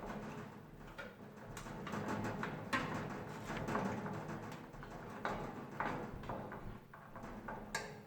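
Scattered light clicks and knocks of metal parts and tools being handled as a replacement thermostat is fitted back into an electric oven, over a low steady hum.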